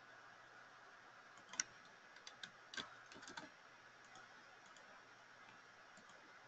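Near silence with a scattering of faint, sharp clicks from working at a computer, between about one and a half and three and a half seconds in, over a faint steady hiss.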